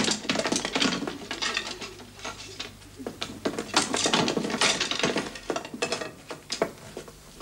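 Irregular clattering and clinking: quick runs of sharp knocks in a few clusters with short quieter gaps between them.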